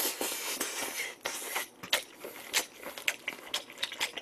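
Close-up wet chewing and lip-smacking of a mouthful of pork neck-bone meat wrapped in a perilla leaf: a quick run of short wet clicks over a soft hiss.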